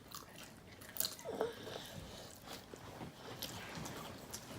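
Close-miked eating: a person biting and chewing food, with irregular sharp crisp clicks and wet mouth smacks.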